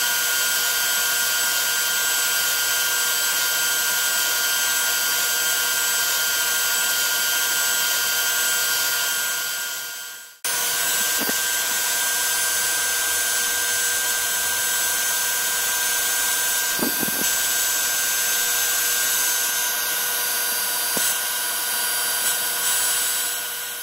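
DeWalt router spindle running at speed with a steady high whine, its 1/8" upcut bit milling 1/4" aluminum plate on a Lowrider2 CNC. The sound fades out about ten seconds in, comes back abruptly, and fades again at the end.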